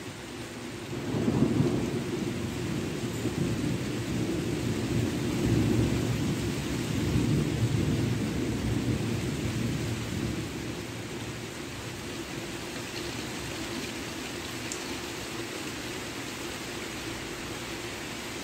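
Rolling thunder: a long low rumble that begins about a second in, swells several times and dies away after about ten seconds, over steady rain.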